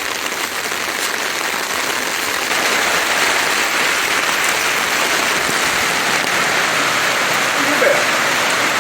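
Steady heavy rain falling, an even, unbroken hiss, heard from under an umbrella.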